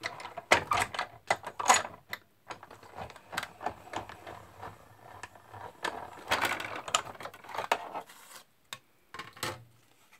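Manual die-cutting machine cranked to roll a stack of plastic cutting plates with a flower die and cardstock through its rollers, giving irregular clicking and rattling that is heaviest about a second in and again around six seconds in. Near the end, lighter handling noise as the cut cardstock is lifted off the plates.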